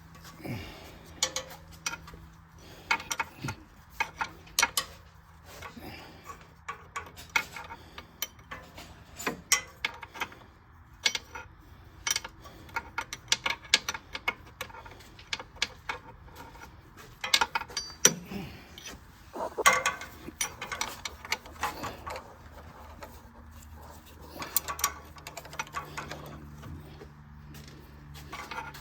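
Socket wrench ratcheting and metal tools clinking in irregular clicks as the starter is unbolted from the engine.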